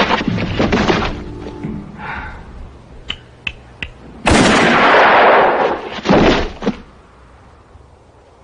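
Movie revolver shot: a loud sudden crack with a long echoing tail about four seconds in, and a second loud bang about two seconds later. Before it there are thudding blows of a scuffle and three light metallic clicks.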